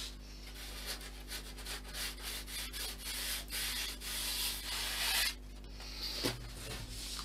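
Hand sanding of filler on a model aircraft fuselage: a run of quick rough rubbing strokes that stops about five seconds in, with one short rub near the end.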